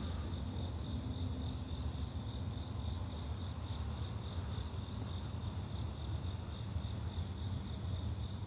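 Night chorus of crickets: a steady, pulsing high trill in several bands, over a continuous low rumble.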